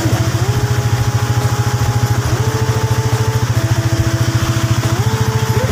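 Small motorcycle engine of a motorela passenger tricycle running steadily with a fast, even pulse, heard from inside the passenger cab, over a steady hiss of rain.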